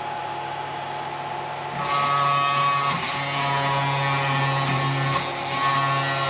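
Dremel rotary tool running steadily, grinding through the thin metal of a model excavator cab between pre-drilled holes. Its whine changes in tone about two seconds in and again later as the load on the bit shifts.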